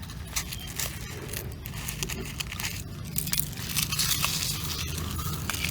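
Crinkling and rustling with many scattered light clicks and taps, getting louder about three seconds in.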